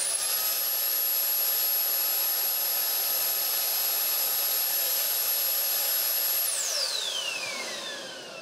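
Dyson Airblade hand dryer's brushless digital motor running at full speed: a steady high-pitched whine over rushing air. About six and a half seconds in it is switched off, and the whine falls in pitch as the motor spins down.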